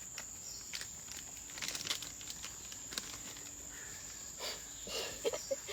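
Steady high-pitched drone of forest insects, with intermittent footsteps and rustling of leaves on a muddy trail, clustered around two seconds in and again near the end.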